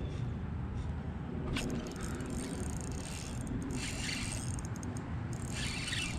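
Wind rumbling steadily on the microphone, with a few short bursts of a spinning fishing reel being cranked as a hooked fish is played in on a bent rod.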